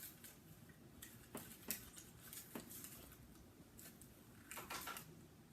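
Faint scattered light taps and clicks, with a short cluster of them near the end, from cinnamon rolls and a plastic microwave breakfast maker being handled.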